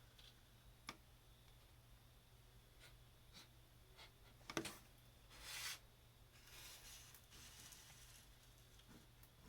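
A man's stifled sneeze brought on by chhinkni sneezing powder: about halfway through, one short sharp burst held in behind a closed mouth, followed at once by a hissing breath and then fainter breathing, in near silence.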